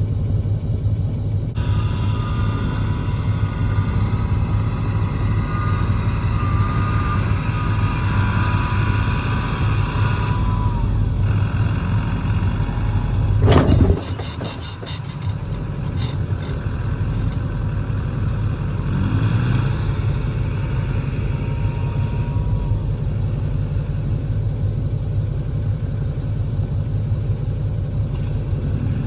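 A vehicle engine running steadily with a low rumble. About halfway through there is one loud sharp knock, and then it is briefly quieter.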